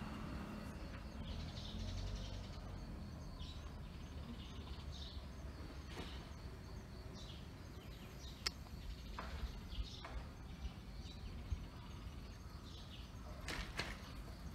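Outdoor ambience: a steady low rumble with scattered faint, short chirps, like small birds, and a few sharp clicks.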